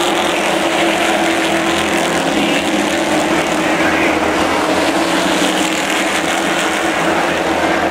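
A pack of late model stock cars racing, their V8 engines running together in a steady, loud, dense drone.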